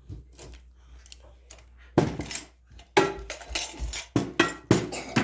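Ceramic dishes clinking and clattering as plates are handled and set down, a string of sharp knocks with a little ringing starting about two seconds in.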